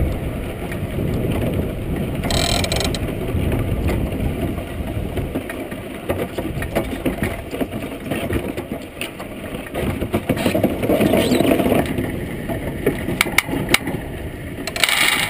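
Iceboat's runners rumbling and scraping over the lake ice, with the hull and fittings rattling and clicking; the clicks grow more frequent after about six seconds.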